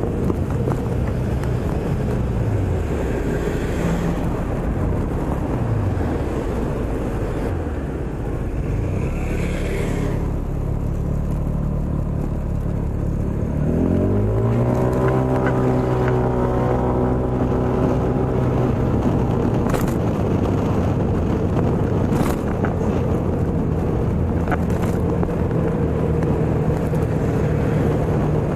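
Scooter engine running through traffic, its pitch falling several times as it slows, then rising sharply as it pulls away about halfway through and again right at the end, over a steady rumble of wind and road noise.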